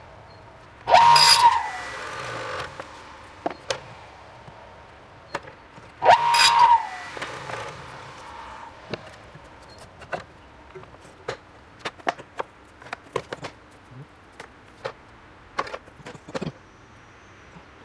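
Miter saw with an AC induction motor making two short cuts, about a second in and about six seconds in, each a brief loud burst whose tone bends down and fades over a second or so. Between and after the cuts come scattered clicks and knocks of wooden pieces being handled.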